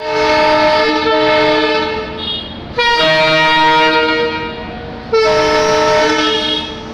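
WDG-3A Alco diesel locomotive's horn sounding three long blasts, each about one and a half to two seconds, several steady tones at once. A low steady rumble runs underneath.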